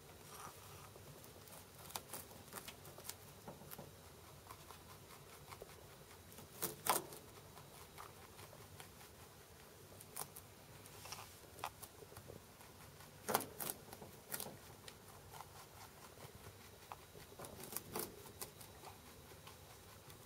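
Holland Lop rabbit munching cabbage leaves up close: irregular soft crunching and clicking of chewing, with a few louder crunches about seven seconds in and again around thirteen seconds.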